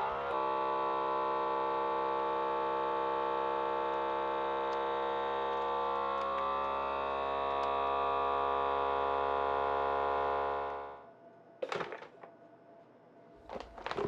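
FoodSaver vacuum sealer's pump running steadily for about eleven seconds, pulling the air out of a bag until it draws tight, then stopping. A couple of clicks follow near the end.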